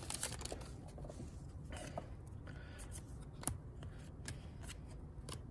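Basketball trading cards being flipped through by hand: quiet slides and soft ticks of card against card, with one sharper click about three and a half seconds in.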